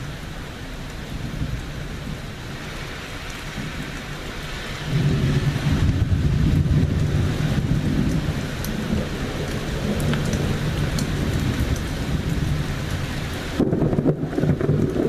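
Steady rain hissing during a thunderstorm, with a loud low rumble of thunder rolling in about a third of the way through and slowly easing off. Near the end a second loud low rumble sets in.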